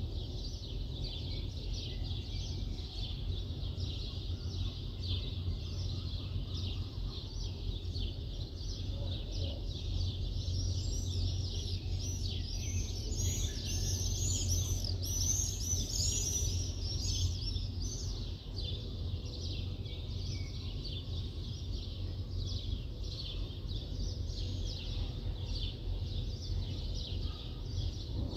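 Many birds chirping continuously over a low, steady city rumble. From about ten to eighteen seconds in, a louder run of quick rising-and-falling notes stands out above the chorus.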